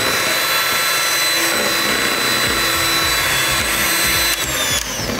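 Electric hand mixer running steadily with a high whine, its beaters whipping cream in a plastic bowl as it thickens into whipped cream. The motor cuts off about four seconds in.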